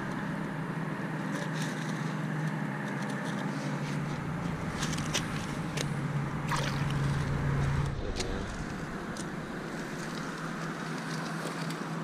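A motor hums steadily, low and even, with a small change in its tone about two-thirds of the way through. Over it come light splashes and scattered clicks of gravel as hands work in the shallow water.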